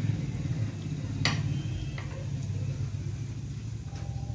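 A man eating idli by hand from a plate: a sharp click about a second in and a few light taps of fingers and food against the plate and bowl, over a steady low hum.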